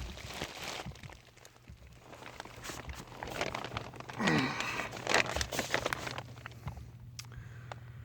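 Crinkling and scraping of a person shifting and crawling about in a crawl space, loudest in the middle. A steady low hum comes in about a second in and runs underneath.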